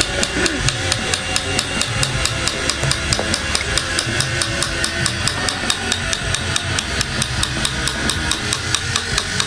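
Small hammer tapping steadily and rapidly, about five or six light strikes a second, in fitting work on a golok handle with brass bands and ferrule held at a vise.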